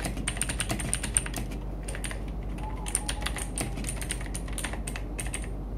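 Typing on the Armageddon MKA-3C mechanical keyboard with Otemu blue switches: fast, irregular keystrokes, each a sharp click, with a couple of short pauses.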